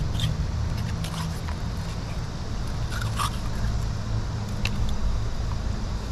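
A knife working on a fish on a rock, giving a few short scrapes and clicks, over a steady low rumble.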